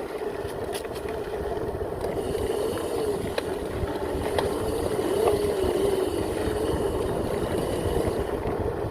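Electric pit bike's 5000 W motor running under way, its whine wavering up and down with the throttle over a low wind rumble on the microphone. A few short knocks from the ride come in the first half.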